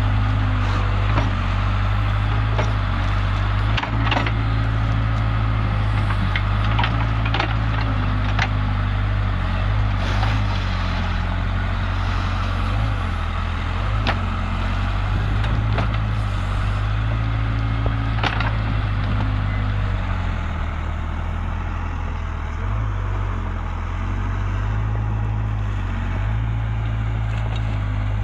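Heavy diesel machinery engine running steadily, its pitch stepping up and down a few times, with scattered creaks and knocks over it.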